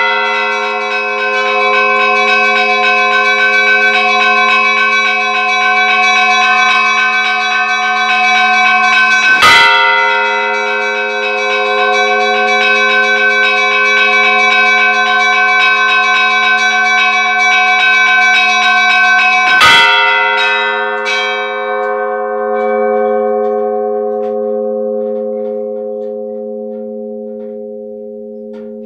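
Church bells ringing: a heavy bell struck twice, about ten seconds apart, over a quick, continuous chiming of smaller bells. After the second heavy stroke the smaller bells stop and the bells' ringing tones slowly fade away.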